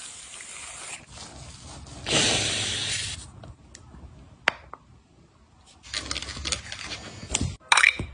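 Handling noises of skincare products: a spray-like hiss about two seconds in, then scattered clicks and crinkly rustling, and a short sharp scrape near the end.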